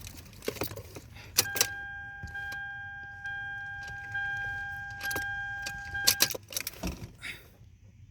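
Keys jangling with clicks and knocks of handling, and a steady electronic warning tone that sounds for about five seconds from about a second and a half in.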